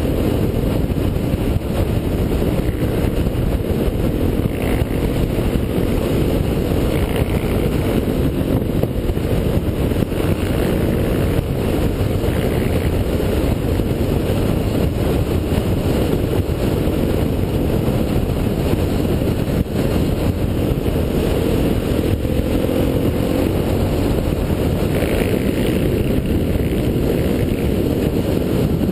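Motorcycle engine running at cruising speed, heavily overlaid by wind rush on a bike-mounted GoPro microphone, its pitch drifting gently with the throttle.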